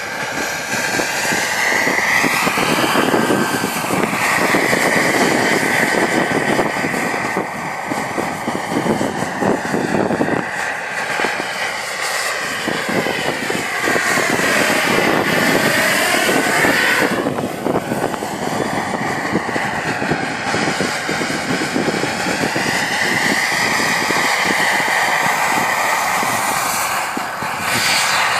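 JetCat PHT3 model turboshaft turbine whining as it powers a radio-controlled helicopter in flight, with the rotor's rushing chop underneath. The whine's pitch sweeps up and down as the helicopter passes back and forth, dropping sharply on one pass near the middle.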